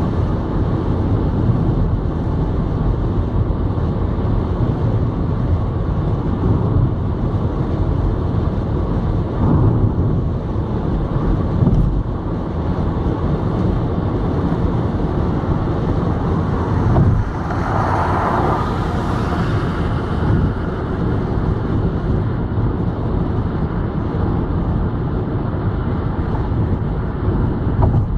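Steady road and tyre rumble with engine hum inside a car's cabin at motorway speed, with a few short thumps and a brief louder hiss about eighteen seconds in.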